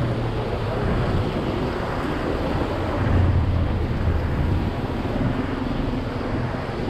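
Steady street noise: a low rumble of traffic on the wet road, mixed with wind buffeting the microphone. The rumble swells about three seconds in.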